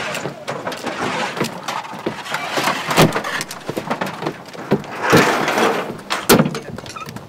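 Soldiers clambering aboard an army truck: a string of knocks and thuds from boots and gear on the truck's wooden bed and tailgate, with scuffing and clattering in between. There are two heavier thuds, about three seconds in and again near the end.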